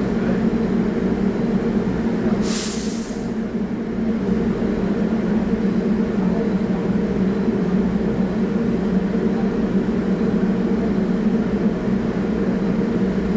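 R44 subway train standing at a platform, its equipment giving a steady idling hum. About two and a half seconds in, a short hiss of air is let off.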